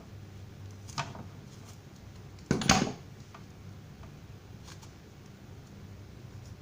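A few light clicks and one short, louder clatter about two and a half seconds in, over a low steady hum: handling noise from objects being moved or set down.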